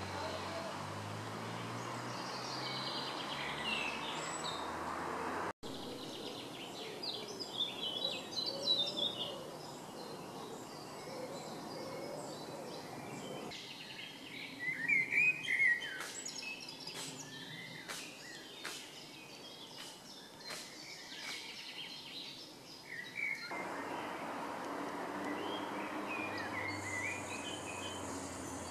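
Wild birds chirping and trilling in woodland over a steady background rush, the background changing abruptly a few times.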